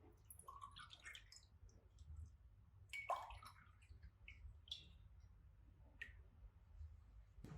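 Faint, scattered light clicks and small knocks of household objects being handled, with one sharper knock about three seconds in.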